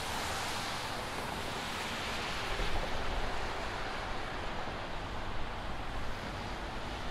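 Steady hiss of city street traffic, tyres running on wet, snowy roads, with low wind rumble on the microphone from about halfway through.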